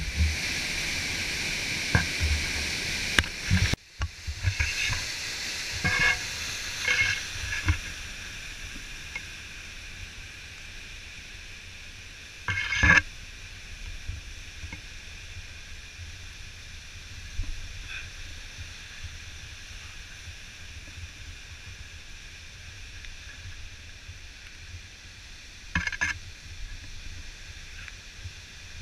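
Rushing white water of a waterfall's rapids in spring flood, a loud steady roar for the first few seconds, then cut off abruptly and replaced by a fainter, more distant rush of the falls. Occasional knocks and scrapes of the camera being handled on the ground break through it, the loudest about 13 seconds in.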